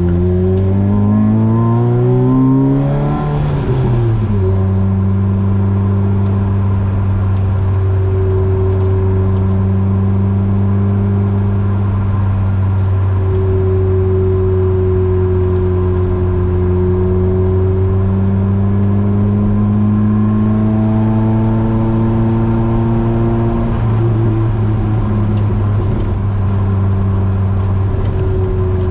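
Opel Speedster's four-cylinder engine through a Larini sports exhaust, revving up for about three seconds, then dropping sharply at an upshift and pulling at fairly steady revs. About twenty seconds in the revs climb gently again before another break near twenty-four seconds.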